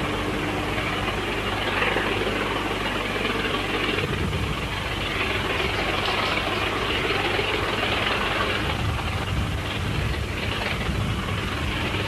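Steam locomotive hauling a passenger train, heard as a steady wash of exhaust and running noise, with a low rumble that grows from about four seconds in.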